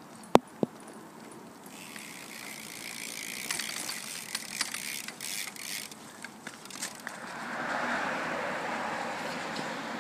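Two sharp clicks a third of a second apart near the start, then a BMX bike rolling on wet asphalt: tyre hiss and scattered ticks from the rear freewheel ratchet as the rider coasts past, with a louder, steady hiss over the last few seconds.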